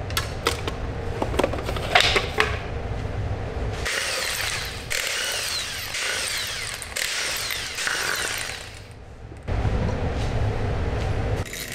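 Power tool run on fasteners in short spells. There are a few sharp clicks at first, then about five seconds of high-pitched whirring from about four seconds in, then a lower-pitched run near the end.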